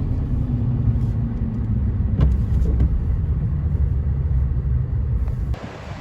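Low road and engine rumble inside a moving car, with a couple of faint clicks. About five and a half seconds in it cuts off suddenly and gives way to a quieter, steady hiss.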